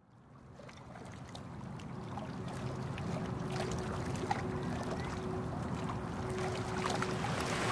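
Ambience of a boat on open water fading in gradually from silence: a low rumble with a faint steady hum, water lapping and scattered small clicks.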